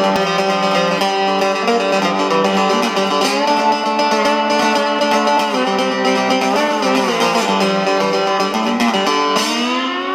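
Background music led by guitar, with notes that slide in pitch; it fades out near the end.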